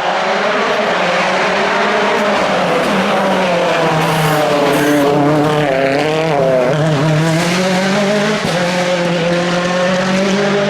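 Turbocharged World Rally Car engine running hard without a break, its pitch sinking a little a few seconds in, wavering, then climbing again near the end.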